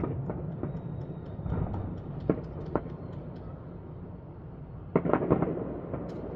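Aerial fireworks display: a steady low rumble of bursts, with two sharp bangs a little over two seconds in and a loud cluster of bangs about five seconds in, and faint crackling in the first half.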